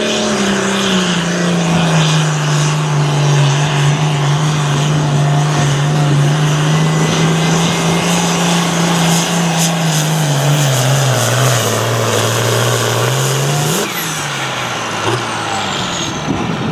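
Hot farm class pulling tractor's engine running hard at high, steady revs under load. Its revs sag lower near the end of the pull, then it cuts back about fourteen seconds in, leaving a high whine that falls away.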